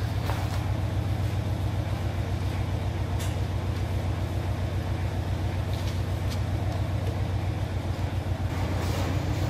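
Steady low mechanical hum with a rapid pulsing rumble underneath, and a few faint light clicks.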